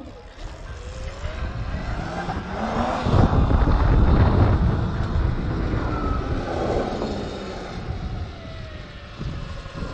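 Sur-Ron electric dirt bike's motor whining, rising in pitch as it accelerates, with loud wind rush on the microphone peaking in the middle. Near the end the whine falls in pitch as the bike slows.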